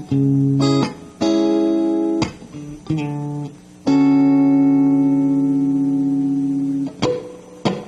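Electric guitar played through a Fender Studio Drive amp with its reverb on: a few short chords, then one chord left to ring for about three seconds as it slowly fades. Two sharp clicks follow near the end.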